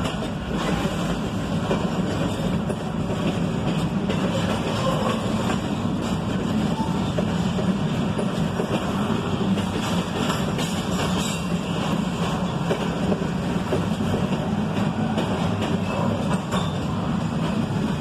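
Double-stack intermodal container well cars of a freight train rolling past: a steady wheel-on-rail rumble, with many small clicks and rattles from the cars and containers.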